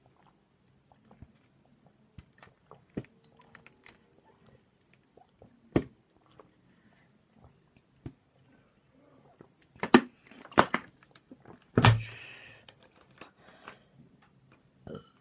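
Swallowing and small mouth and bottle clicks as a plastic bottle of soft drink is drunk from, followed by a few louder sharp sounds about ten to twelve seconds in, the last trailing into a breathy exhale.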